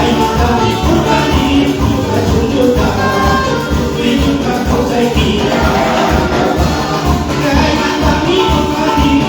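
Live band music with a steady beat, pitched instruments over rhythmic percussion, in a Latin American style.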